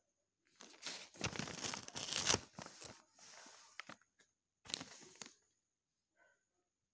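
Paper sheets rustling and crinkling as they are handled and turned, in three bursts: a long loud one for about two seconds near the start, a softer one around the middle, and a short one a little later.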